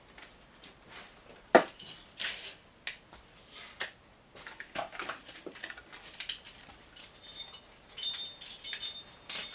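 Climbing gear being handled and packed: scattered rustling and knocks, with a sharp knock about a second and a half in. In the last few seconds metal hardware clinks and jingles with a light ringing.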